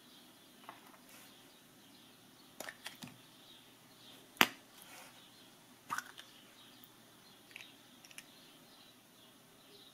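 Hands handling a plastic Kinder Surprise toy capsule: scattered clicks and taps, with one sharp, much louder snap about four and a half seconds in as the yellow capsule is popped open. Birds chirp faintly in the background.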